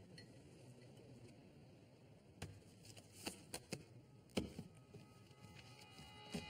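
Near quiet, then from about two and a half seconds in a handful of short, sharp clicks and taps of handling at a poker table.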